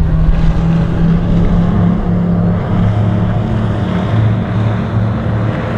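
Motorboat engine running at speed, a steady drone that drops to a lower pitch about halfway through.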